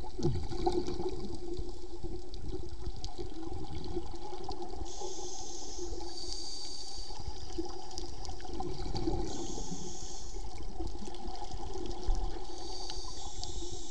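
Underwater sound from a diving camera: a steady watery rush with a low hum, and three hissing breaths drawn through a scuba regulator, about five, nine and twelve and a half seconds in.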